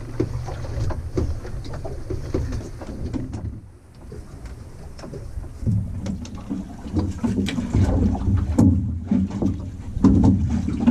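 Boat engine idling with a steady low hum, under a run of short knocks and clatter that gets louder and busier from about halfway through.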